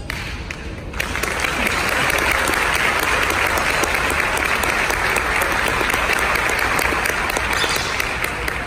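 Audience applauding, rising suddenly about a second in and fading near the end.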